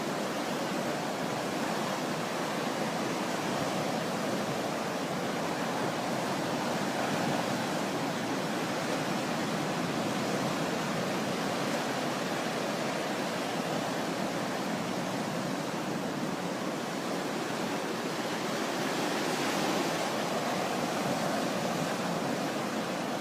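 Sea waves washing on the shore in a steady, continuous rush, swelling slightly twice.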